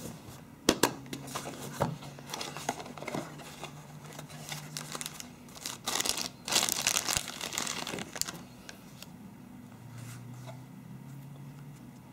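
Cardboard phone box being opened, with a few sharp clicks about a second in. Clear plastic wrapping is then handled and crinkles loudly for about two seconds around the middle, followed by quieter handling of the packaging.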